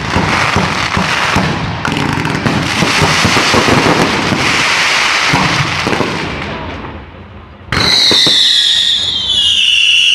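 Fireworks: dense crackling and popping for about six seconds that fades away, then a loud whistling firework starts about eight seconds in, its shrill tone slowly falling in pitch.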